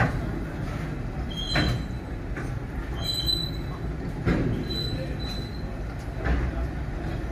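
Freight train wagons rolling past close by: a steady rumble of steel wheels on rail, with a knock every second or two as wheels cross rail joints and several short, high wheel squeals.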